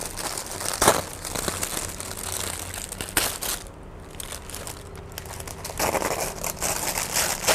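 White paper wrapping crinkling and rustling as hands pull it loose, with a couple of sharp crackles about one and three seconds in, quieter in the middle and louder again near the end.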